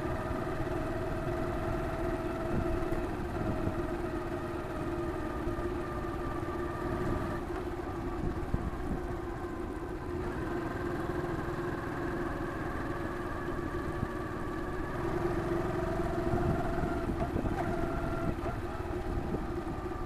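Honda Cross Cub's single-cylinder four-stroke engine running while riding along at road speed, picked up by the dash cam's handlebar-mounted microphone with road and wind rumble. The engine note stays steady, its pitch shifting a little as the speed changes.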